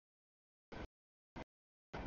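Rolling noise of freight cars passing over the crossing, heard only in three brief snatches, with the audio dropping out to dead silence between them.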